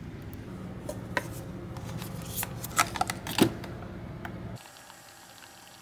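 Plastic clicks and knocks of a Keurig single-serve coffee maker being handled at its lid, the loudest a little past halfway, over a steady low hum that drops away near the end.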